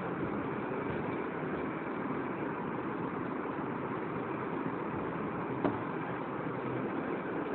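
Eraser rubbing across a whiteboard as the written working is wiped off, a steady scrubbing noise, with one small knock a little over halfway through.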